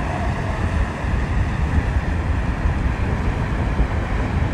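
Wind buffeting the microphone outdoors: a steady, fluttering low rumble with a faint hiss above it.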